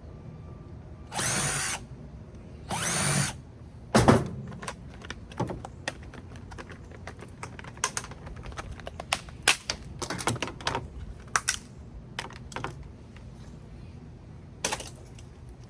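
A power drill runs in two short bursts. Then comes a loud metal clank about four seconds in, followed by a long run of scattered clicks and clatters as metal parts of the microwave are handled.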